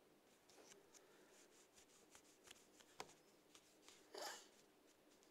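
Near silence, with faint scattered clicks and light rustling: one sharp click about three seconds in and a brief soft rustle about a second later.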